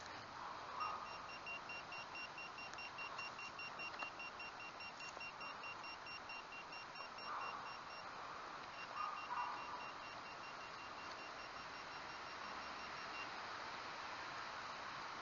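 Handheld metal-detecting pinpointer sounding a high, rapidly pulsing beep, its alert that metal is close in the dug soil. It breaks off briefly about eight seconds in, then sounds again until near the end. Now and then come soft scrapes of hands working through soil and grass.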